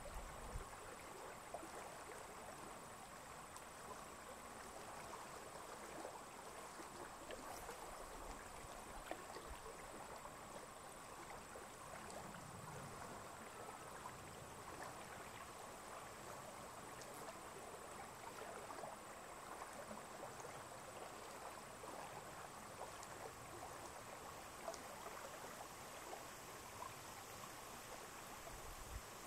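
Lake water lapping gently, a faint steady wash with small irregular splashes.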